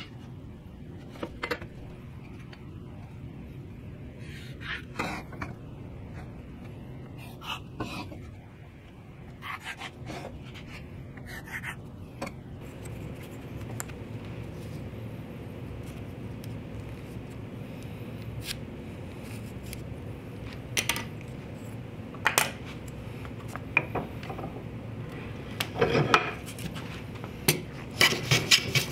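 Metal hand tools handled on a wooden workbench: scattered clinks and knocks as a combination square and a small hand plane are picked up and set down. Near the end, a few quick hand-plane strokes shave a small pine block.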